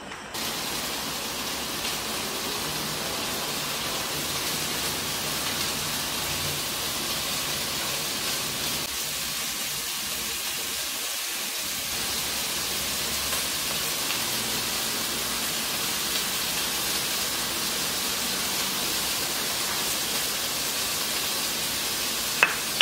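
Steady, even hiss like falling rain, with a sharp click near the end.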